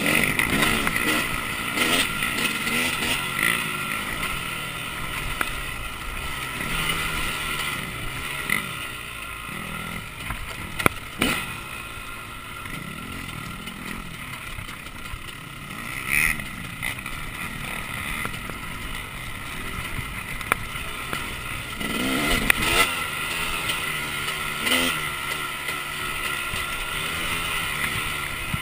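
2011 KTM 300 two-stroke enduro motorcycle heard on board, the engine revving up and down as it is ridden over a rough, rocky trail. A few sharp knocks come from the bike over the rocks.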